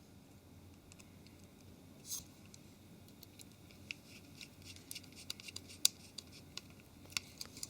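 Faint scattered clicks and scrapes of a small Torx screwdriver turning the two bottom screws into a Nokia 701's casing, done up only finger tight; the ticks come more often in the second half.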